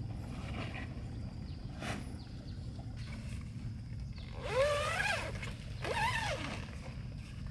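Two drawn-out animal calls, each rising and then falling in pitch, the first about four and a half seconds in and the second about a second later, over a steady low rumble.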